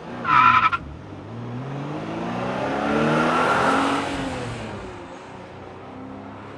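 A car engine rising in pitch and loudness to a peak about three to four seconds in, then falling away, after a short high-pitched tone right at the start.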